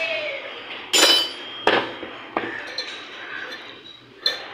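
Metal striking metal four times in a workshop. The first clank, about a second in, is the loudest and rings briefly. Sharper knocks follow, the last near the end.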